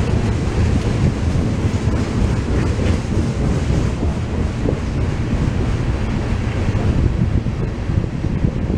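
Wind buffeting the microphone in a steady low rumble, with the rolling noise of a loaded freight train of ethanol tank cars passing.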